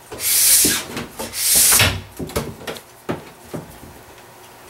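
Wax scraper pulled along a ski base in two hissing strokes in the first two seconds, hot-scraping the still-warm base-prep wax out of the base; after that only a few light knocks and handling sounds.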